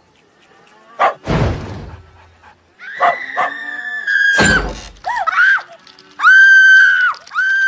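Cartoon soundtrack: a heavy thud about a second in and another about four and a half seconds in. Then high-pitched screaming, ending in two long held shrieks.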